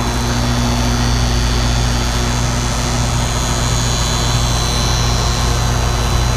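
Rheem R-410A air-conditioning condensing unit running: a steady hum under the even rush of its fan.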